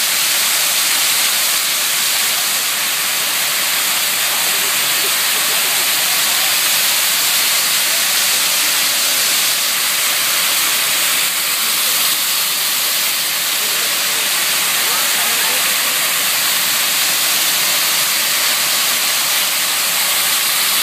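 Rows of fountain jets spraying up from the paving and splashing back down, a loud steady hiss of falling water.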